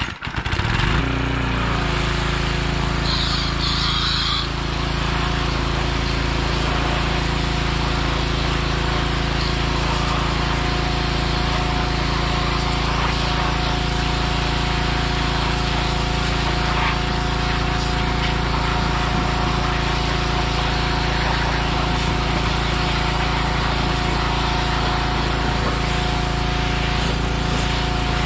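Gas pressure washer's small engine starting, rising in pitch for about a second, then running steadily with a constant hiss.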